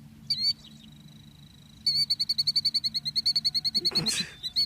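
Killdeer giving shrill alarm calls at the nest: a short burst of calls, a thin held note, then a loud rapid run of repeated notes. A brief rush of noise comes about four seconds in.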